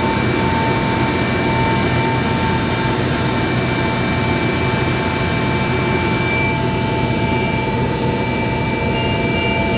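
Turbine helicopter in flight, heard from inside the cabin: a dense, steady engine noise with several constant high whines.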